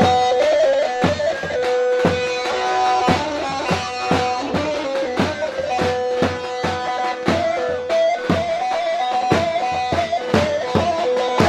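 Live wedding dance music: a long-necked saz (bağlama) plays a repeating melody over a keyboard's drum beat, about two beats a second.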